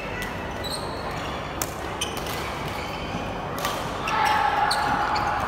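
Badminton rally: sharp racket-on-shuttlecock hits, two in quick succession just before halfway and another a little later. From about four seconds in comes a louder held call or shout.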